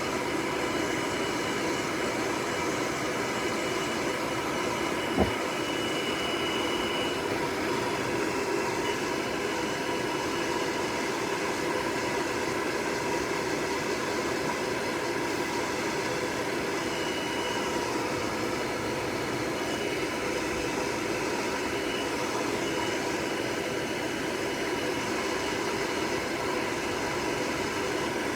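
Hair dryer blowing steadily with a constant whirring hum, with one short click about five seconds in.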